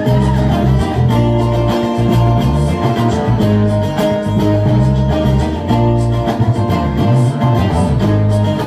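Live music: amplified acoustic guitar playing an instrumental passage between sung verses, with held notes over a steady low pulse.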